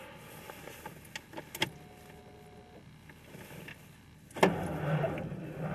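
A few light clicks, then about four and a half seconds in the starter motor suddenly begins cranking the 1993 Ford Ranger's engine, which turns over steadily in the deep cold without yet firing.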